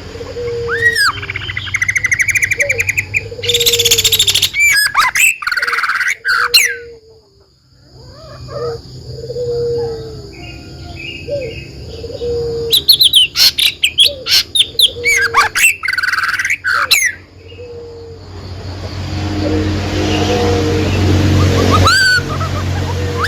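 Songbirds singing: fast trills and sharp sweeping chirps in bursts, over a short low note repeated roughly once a second. The singing pauses briefly about a third of the way in and gives way to a steady hiss near the end.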